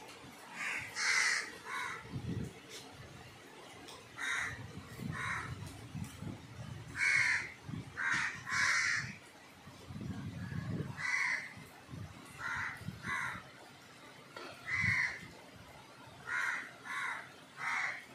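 Crows cawing repeatedly, short harsh caws in runs of two or three, over the steady hiss of monsoon rain.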